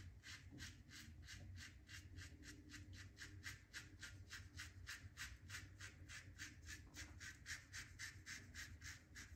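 Faint scraping of a Karve Overlander safety razor cutting through lathered stubble in short, quick, even strokes, about four a second.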